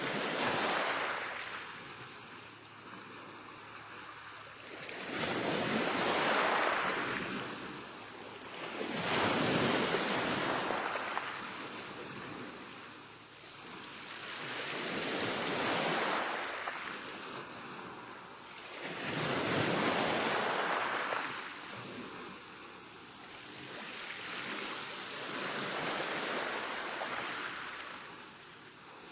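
Waves on a rough sea breaking and washing in, in slow surges every four to six seconds, each swelling up and then fading away.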